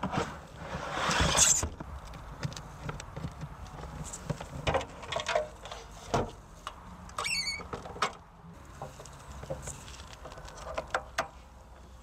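Handling noises of a portable camping sink being set up: a scraping rustle as the plastic water tank is moved about a second in, then scattered taps and knocks of the plastic lid and steel basin being set in place, and a short squeak around seven seconds in.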